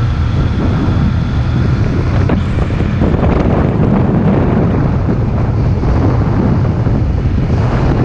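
Steady wind noise on the camera's microphone from a moving motorcycle, with the motorcycle's engine and road noise running underneath.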